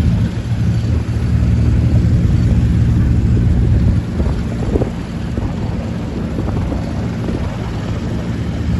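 A motor vehicle engine running steadily at low speed, with wind noise on the microphone.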